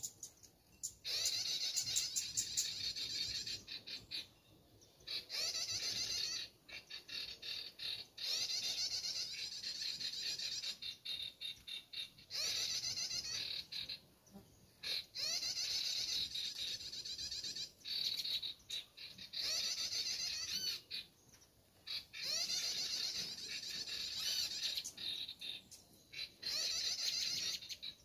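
Recorded sogon bird calls played on a loop from an MP3 player as a trapping lure: repeated bursts of rapid, high chattering, each a couple of seconds long, with short pauses between them.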